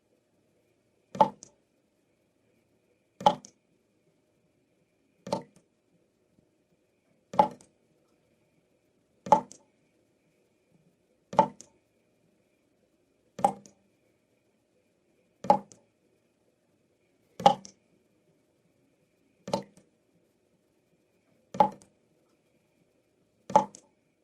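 Water dripping from a tap, single drops plopping into water at an even pace of about one every two seconds, twelve in all.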